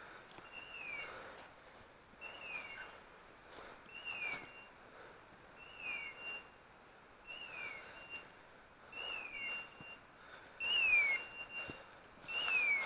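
Electronic beeper collar on a hunting setter, sounding a short falling whistle that repeats at an even pace about every second and a half. Footsteps crash through dry leaves and brush, loudest near the end.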